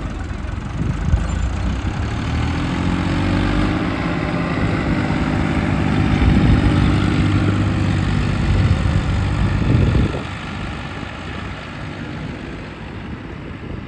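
Heavy diesel earthmoving machine's engine running hard, its pitch rising about two seconds in and holding steady. About ten seconds in it drops back to a quieter, lower running.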